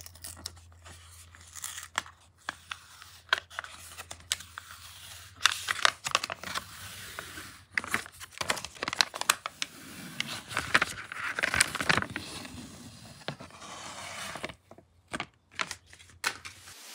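Paper protective backing being peeled off a round plexiglass (acrylic) disk: irregular tearing and crackling in short rasps. A faint steady low hum lies underneath and stops near the end.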